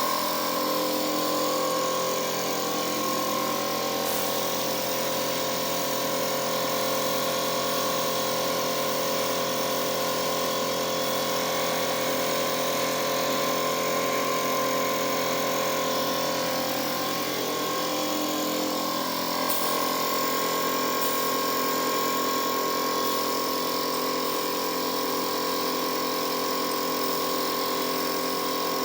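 A machine motor running steadily: a constant hum with several fixed tones and a hiss above them, the tones shifting slightly about two-thirds of the way through.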